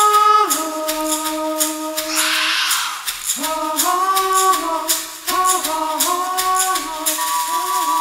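Native American-style chanted singing, one voice holding long notes and then moving in short, stepped phrases, over a hand rattle shaken in a steady rhythm, with a louder swish of the rattle about two seconds in.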